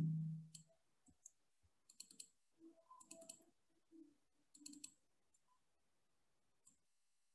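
Faint clicks of a computer mouse, several, some in quick pairs, as text in a document is selected and highlighted.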